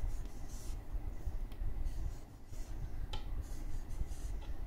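Marker pen drawing strokes on paper: several short, soft scratches with a couple of sharper ticks as the pen touches down.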